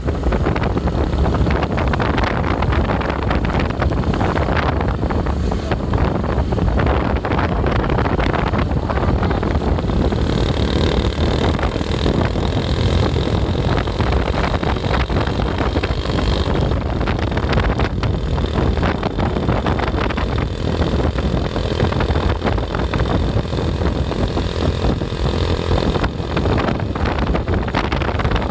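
Steady road and engine noise from a vehicle travelling at speed, with wind buffeting the microphone. A higher hiss joins for several seconds near the middle.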